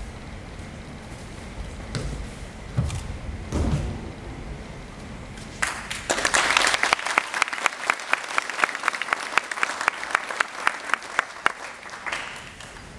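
Two judoka landing on the mat during a throw, heavy thuds a few seconds in. From about halfway through, audience applause, fading out near the end.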